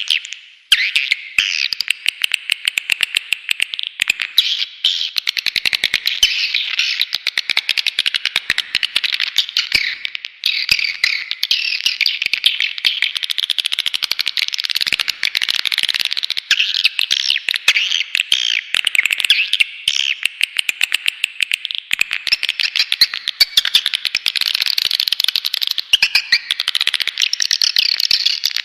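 Swiftlet lure call: a dense, unbroken, high-pitched chatter of edible-nest swiftlet twitters and rapid clicks. It is a recording played to call swiftlets into a nesting house.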